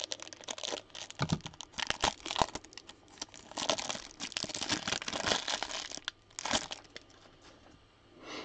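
Plastic wrapping of a trading-card pack crinkling and tearing as it is opened, with irregular rustling that dies down near the end.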